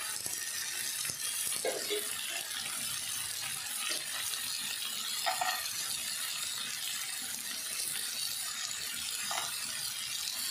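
Cooking oil sizzling steadily in a non-stick frying pan as cashew nuts fry in it with tomato masala: an even, hissing crackle.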